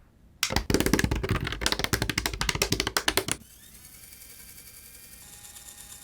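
A rapid clatter of many small sharp clicks for about three seconds, stopping suddenly, followed by a faint steady hum with a few thin high tones.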